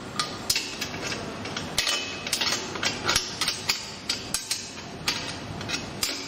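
Adjustable wrench tightening a bolt on a traffic-light mounting bracket: irregular metallic clicks and clinks of the wrench on the bolt and bracket.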